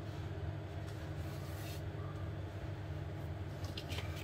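Steady low background hum, with light handling noise from a plastic sheet protector as fingers shift the page: a brief rustle about one and a half seconds in and a few soft clicks near the end.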